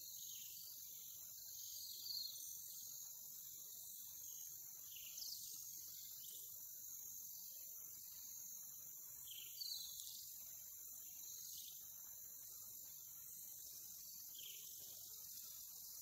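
Faint, steady insect chorus: a continuous high-pitched trilling. Every few seconds a brief downward-sliding whistled animal call sounds over it, about eight times.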